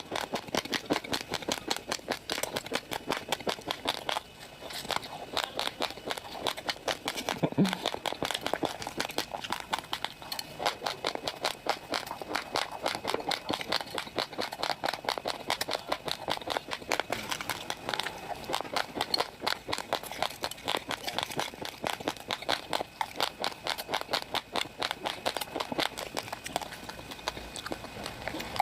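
Raw, uncooked rice grains being chewed: a rapid, continuous run of crisp crunches, several a second.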